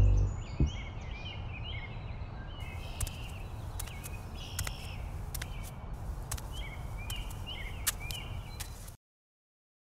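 Outdoor ambience of birds chirping over a low steady rumble, with scattered sharp clicks from about three seconds in. It cuts off abruptly near the end.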